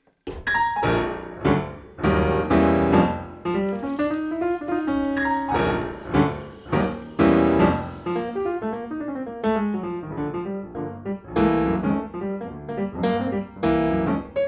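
Solo piano music: a melody played over chords, each note struck and ringing out.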